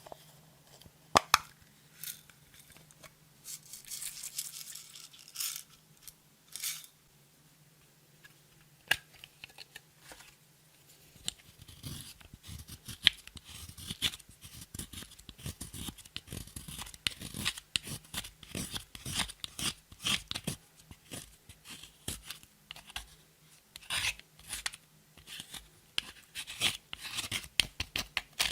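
Clear slime being worked by hand, giving sticky crackling and popping clicks: scattered at first, then dense and continuous from about eleven seconds in.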